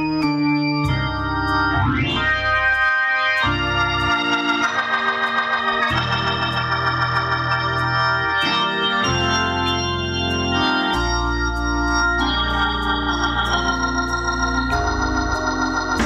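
Organ and keyboards playing sustained gospel chords over a deep bass line, with regular sharp percussive hits: the band's instrumental introduction before the song's vocals come in.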